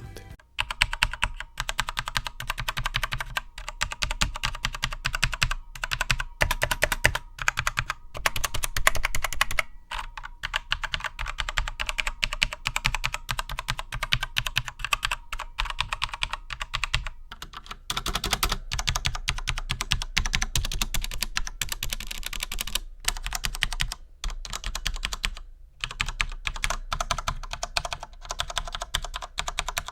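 Fast typing on a gaming mechanical keyboard with linear switches: a dense clatter of key presses in spells of several seconds, broken by short pauses about ten seconds in, around seventeen seconds, and twice more in the second half.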